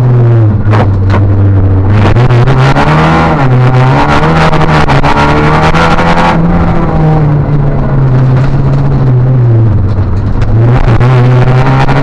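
Opel Astra rally car's engine heard from inside the cabin, pulling hard and revving up through the gears, then easing off as the revs fall, before pulling hard again near the end. A few sharp clicks come about a second in.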